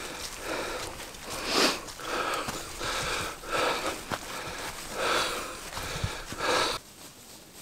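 A man breathing hard in loud, irregular gasps about every half to one second, from the exertion of hauling a loaded hiking trolley. The breathing stops abruptly near the end.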